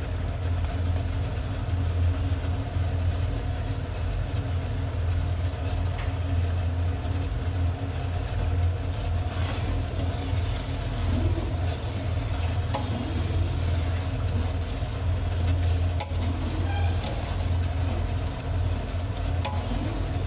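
Tomato masala sizzling in a large pot as ground spices are stirred in with a spoon, with a few sharp clicks, over a steady low hum.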